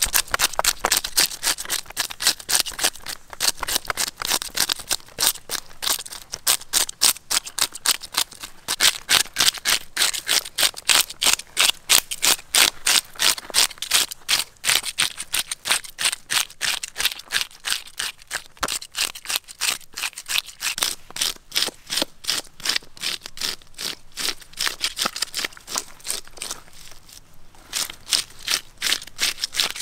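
Toothed plastic fish scaler scraping the scales off a large fish: quick, rhythmic rasping strokes, a few a second, with a brief pause near the end.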